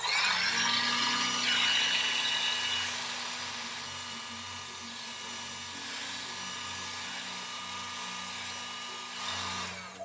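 Heat gun running with a steady blowing whir, loudest for the first few seconds and switched off abruptly near the end.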